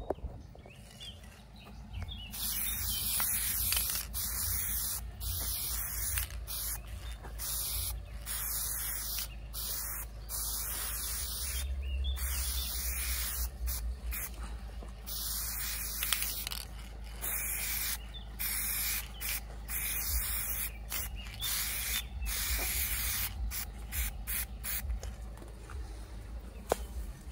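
Aerosol spray-paint can spraying in many short bursts with brief pauses between them, as paint is laid on a wall.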